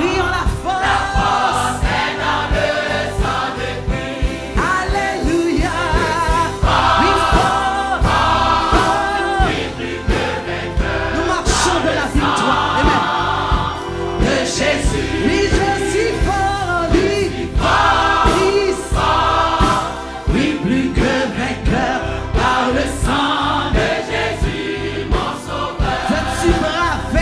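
Mixed gospel choir of men and women singing a hymn together in full voice, over a steady beat.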